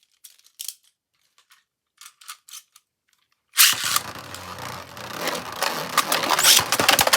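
A few light plastic clicks, then about three and a half seconds in two Beyblade Burst tops are launched into a plastic stadium. They spin and clash in a dense, continuous rattling clatter.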